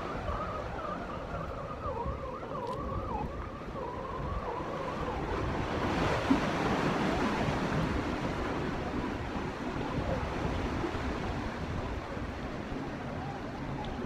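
Surf and wind on a jetty, with a faint wavering tone for the first five seconds. About six seconds in the rushing surf noise grows louder.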